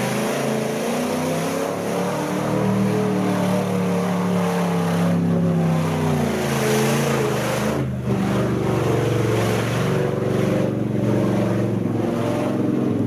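Old square-body pickup truck's engine running at high revs under heavy load as it churns through deep mud, with the rush of mud and water thrown by the tyres. The engine note dips briefly a little past halfway.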